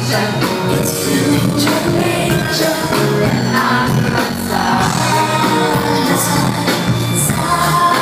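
Live pop song from a concert stage: a woman singing lead into a microphone over a full band, heard from the audience.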